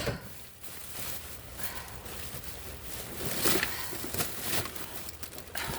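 Rustling and light clattering of plastic bags and plastic dividers being handled and sorted by hand, in irregular swishes and small clicks.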